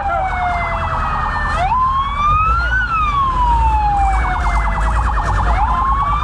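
Fire truck siren wailing, its pitch rising for about a second and then falling slowly for about three, one cycle about every four seconds. A second, fast-pulsing siren sounds with it, over a low engine rumble.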